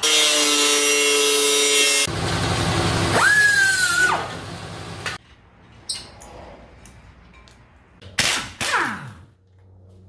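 A quick run of shop power tools cut one after another: an angle grinder cutting steel, with a steady whine, for about two seconds, then a second loud grinding run whose whine jumps up and holds. After a quieter stretch of clicks come two short loud tool blasts with a falling whine, and short bursts near the end.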